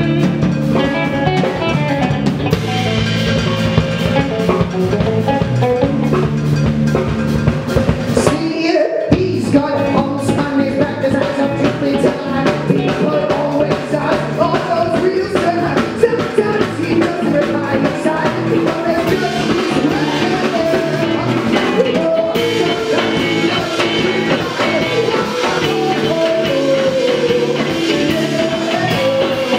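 Indie rock band playing live: a singer's voice over electric guitars and a drum kit, with a brief break in the music about nine seconds in.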